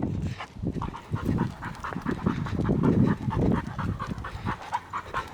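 Pit bull panting quickly and evenly, about four breaths a second, with uneven low rumbling underneath.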